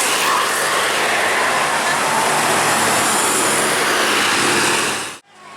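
Loud, steady rushing noise of a bus going by, with no horn tune in it, cut off suddenly about five seconds in.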